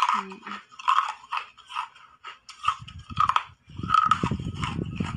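Close crunching and biting of frozen coloured ice, a series of crisp crunches about two a second. From about halfway through, a deeper chewing rumble joins them.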